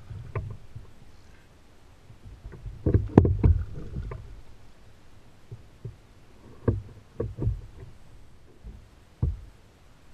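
Irregular knocks and thumps on a plastic kayak hull, with splashing, as a hooked longnose gar is fought alongside the boat and brought in. The loudest burst of knocking comes about three seconds in, and a few separate thumps follow later.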